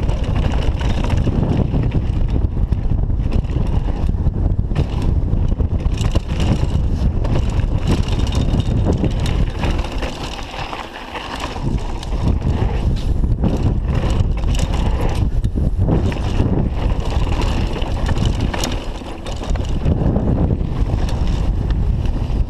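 Downhill mountain bike riding fast over a dirt and gravel trail, heard from a chest-harness camera: heavy wind rush on the microphone with tyre noise on loose dirt and the rattle and clatter of the bike over rocks. The rush eases twice, around ten and nineteen seconds in.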